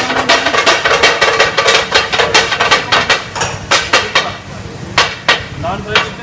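Metal spatulas clanging against a large flat iron griddle (tawa), a rapid clatter of several strikes a second that thins out after about four seconds, with two last sharp strikes near the end.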